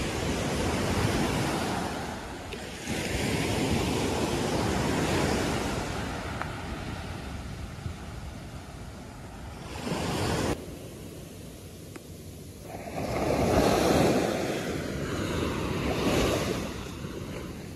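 Ocean surf breaking and washing up a sandy beach, the wash rising and falling in several swells, with wind rumbling on the microphone.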